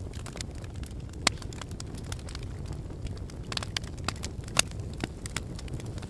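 Wood fire crackling in a fireplace: a steady low rumble of burning with frequent small snaps and pops, and two louder pops, about a second in and a little past halfway.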